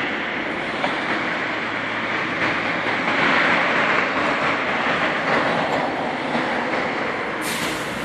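Steady road traffic on a multi-lane boulevard: tyre and engine noise from cars and buses passing below, swelling in the middle as an articulated bus goes by.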